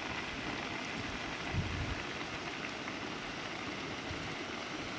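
A pot of rice boiling over an open wood fire, bubbling steadily.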